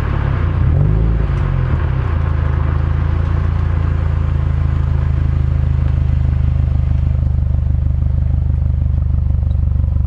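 Subaru WRX STI Type S (VAB) with its 2.0-litre turbocharged flat-four engine, heard from inside the cabin while driving along with road noise. The engine note swells briefly about a second in, then runs steady at cruise.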